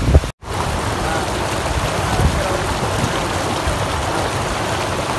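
Shallow water running through a concrete culvert, a steady rushing hiss that starts after a brief dropout near the start.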